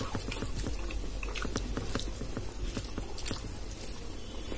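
A person chewing rice and dal with many small wet clicks and smacks of the mouth, while fingers squish and mix rice and lentil dal on a steel plate.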